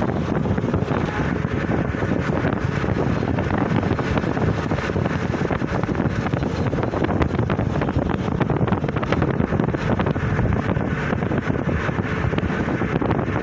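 Steady wind rumble on the microphone mixed with road traffic noise.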